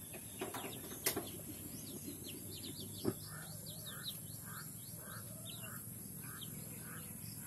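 A flock of young chickens, under a month old, peeping as they forage: many short high chirps, with a steady run of lower peeps about twice a second from a couple of seconds in. A few sharp clicks sound in the first three seconds.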